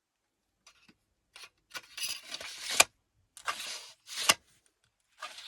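Sword blade sliding against its scabbard, three times: each a metallic scrape that builds up, the first two ending in a sharp click.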